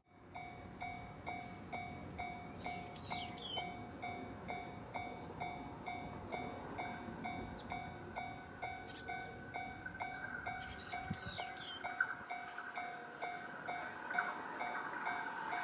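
Japanese railway level-crossing warning bell ringing steadily, about two strikes a second, as an electric train approaches; the train's hum grows louder from about halfway in. A bird chirps twice.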